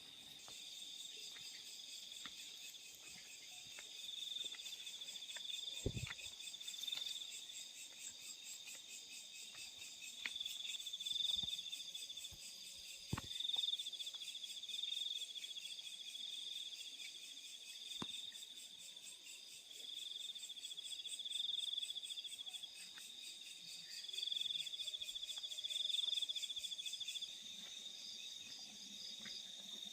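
Several crickets trilling together: one high, finely pulsed trill with others layered above it, swelling and fading in waves every few seconds. A few faint clicks sound here and there.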